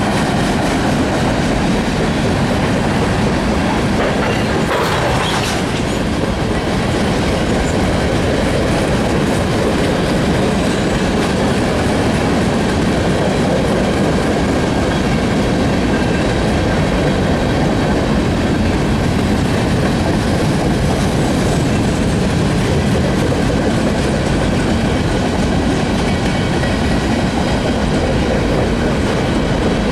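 Freight cars of a long freight train rolling past: a steady rumble and clatter of steel wheels on the rails, with a faint thin wheel squeal.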